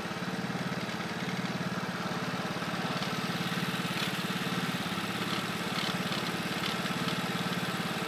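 Engine of a small open vehicle running steadily with an even, rapid pulsing beat.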